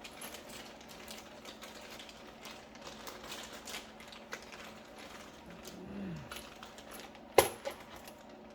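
Small metal engine parts being handled, with repeated light clicks and clinks and one sharp metallic clink about seven seconds in, then a softer one.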